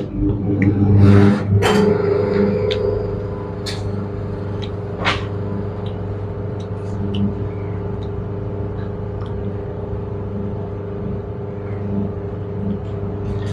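A steady machine hum with a low drone that starts suddenly and runs on evenly, with a few small clicks over it.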